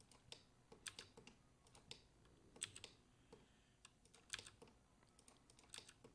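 Faint computer keyboard keystrokes: sharp clicks that come irregularly, often two or three close together, as shortcut keys are pressed.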